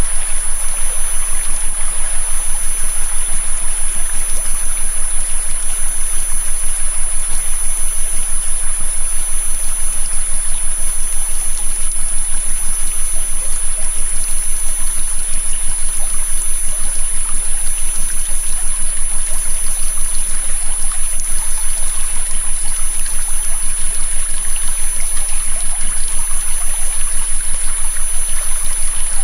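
Flowing river water, steady, overlaid with a continuous high-pitched tone, the added 'taste stimulating' frequency, and fainter high tones above and below it. The overall loudness pulses quickly and evenly.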